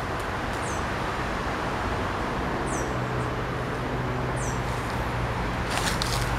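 Steady city traffic noise with a bird giving three short, high chirps that drop in pitch, and a low hum coming in about halfway through. Footsteps on dry leaf litter near the end.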